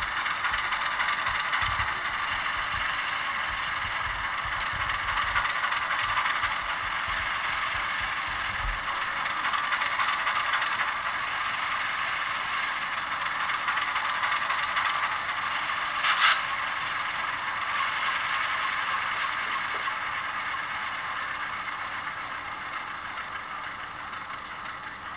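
Model locomotive sound decoder playing a turbocharged ALCO 251 diesel prime mover at idle with the throttle closed, a steady rattling engine sound through a small onboard speaker. There is a single sharp click about 16 seconds in, and near the end the engine sound fades as the shut-down begins.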